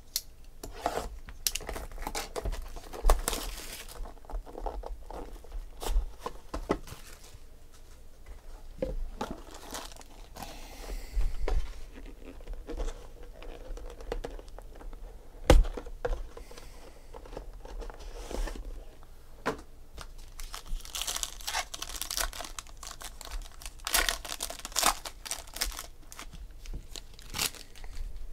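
Hands unpacking a box of trading cards: cardboard packaging and a gold foil pack wrapper crinkling and tearing open, with scattered sharp knocks of packaging on the table, the loudest about halfway through.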